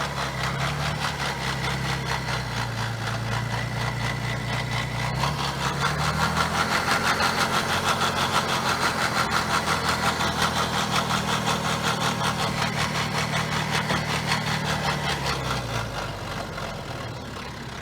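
BMW N57 3.0-litre straight-six diesel engine running with a bad timing chain that makes a noise. It starts at a low idle, the revs rise about six seconds in and hold, then drop back near the end.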